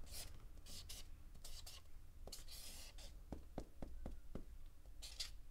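Felt-tip marker drawing on paper: quiet, short scratchy strokes, with a run of quick taps about three seconds in as a row of dots is dabbed along the top of the drawing.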